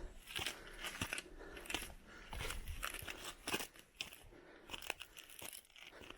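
Crunching footsteps at walking pace, about three steps every two seconds.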